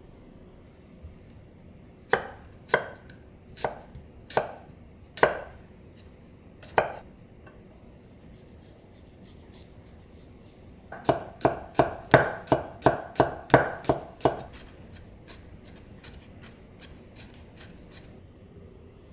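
Kitchen knife cutting a garlic clove on a wooden cutting board: about six separate knocks of the blade on the board, then a fast run of chopping as the garlic is minced, fading into lighter quick taps near the end.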